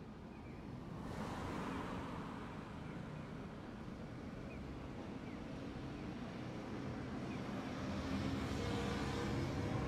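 Street traffic: a vehicle running and growing steadily louder as it approaches, with a low hum coming in near the end.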